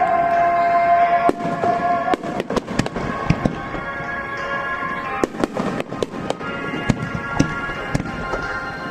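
Aerial fireworks bursting in quick, irregular succession during a finale barrage, with many sharp bangs and crackles. Music plays over loudspeakers under the bursts, with a held note for the first couple of seconds.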